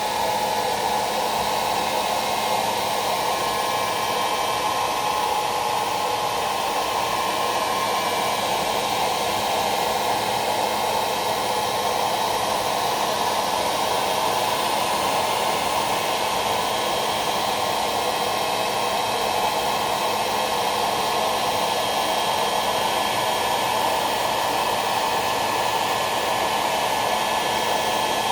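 Hairdryer running steadily: an even, unbroken rush of air, with a faint steady motor hum beneath it.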